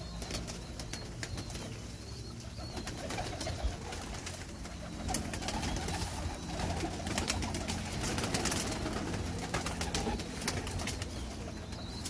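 A flock of domestic pigeons feeding on scattered grain, cooing, with many light taps and wing flutters among the crowding birds.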